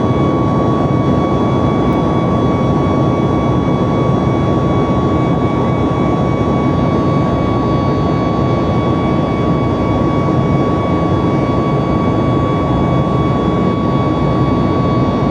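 Boeing 737 MAX's CFM LEAP-1B jet engines running after takeoff: a steady rush of noise with a steady high whine that holds one pitch throughout.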